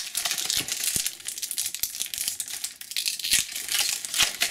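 Foil trading-card booster pack crinkling and tearing as it is opened by hand: a continuous run of sharp crackles and rustles.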